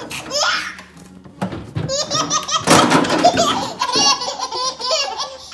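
Hearty laughter, with a toddler crying and whining.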